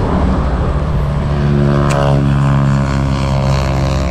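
A motor vehicle's engine passing on the road close by, its pitch dropping as it goes past about two seconds in. There is a short sharp click at about the same moment.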